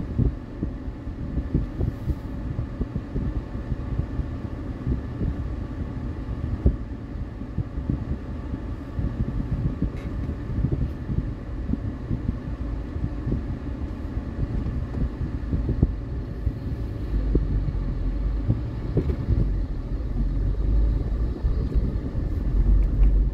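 Car engine and road noise heard from inside the cabin: a steady low rumble while waiting, which grows heavier in the last few seconds as the car pulls away and gathers speed.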